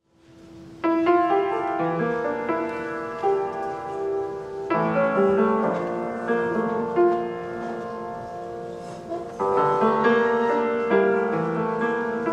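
Solo piano playing a slow introduction of held chords. A soft note fades in first, and the first chord is struck about a second in; later chords follow every second or two and ring on.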